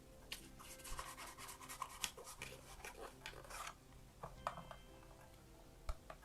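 Tarot cards being handled and flipped through: a quick run of faint rustles and clicks of card stock in the first few seconds, then a few scattered clicks.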